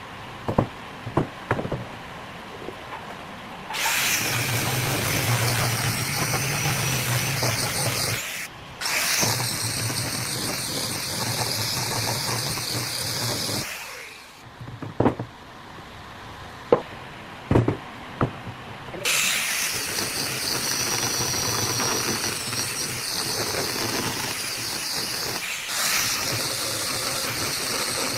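A motorized power tool running in long stretches, starting about four seconds in, cutting out briefly, stopping for several seconds and then starting again. Sharp knocks and clicks fall in the quieter gaps.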